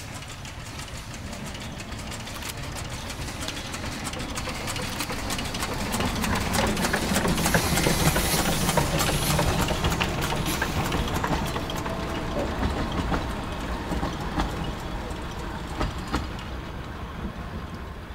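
Amamiya No. 21, a small narrow-gauge steam locomotive, running past with its coaches, the wheels clicking over the rails. It grows louder, is loudest about eight seconds in as it goes by, then fades as the last coaches pass.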